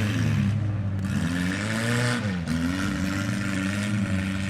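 Engines of demolition-derby mini trucks revving, two or more at different pitches, rising and falling as the drivers throttle up and back off.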